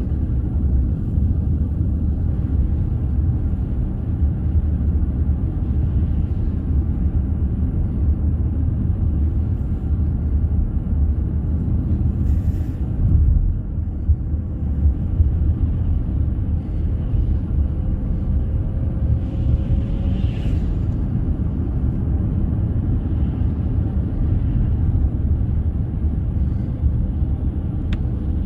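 A steady low rumble with no speech; a faint thin tone rises slightly about two-thirds of the way through.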